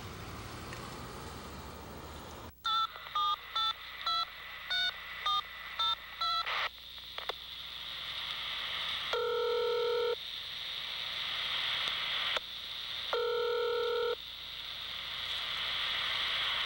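A touch-tone phone number dialed, a quick run of about a dozen beeps, after a few seconds of steady outdoor rumble that cuts off abruptly. Then the ringback tone on the line, ringing twice about four seconds apart, over rising line hiss.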